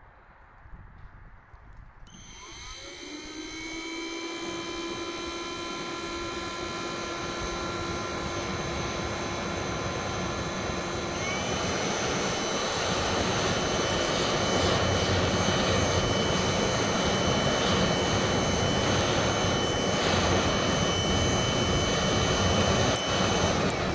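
A motor-driven machine starting up with a rising whine, then running with a steady whine over a rush of air. The rush gets louder about halfway through, and the machine stops near the end.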